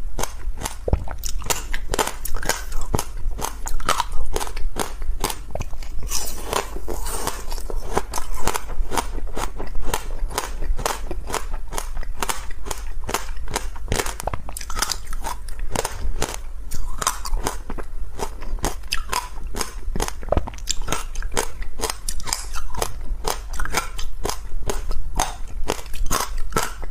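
Crunchy ice being bitten and chewed: a dense, continuous run of sharp cracks and crunches.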